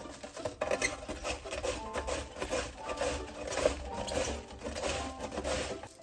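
Cabbage being shredded on a plastic julienne slicer: the wedge is rubbed back and forth over the blade in quick, repeated rasping strokes, a few a second.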